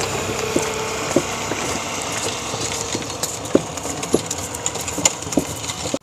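Bullock cart with wooden spoked wheels, drawn by two oxen, rolling along an asphalt road: a steady rattling rumble broken by irregular sharp clacks.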